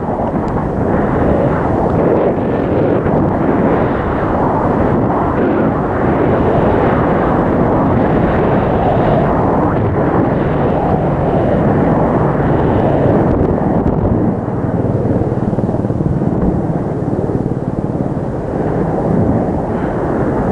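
Loud, steady rush of wind over the camera microphone during a fast downhill ride on snow, mixed with the hiss and scrape of a snowboard carving through the snow.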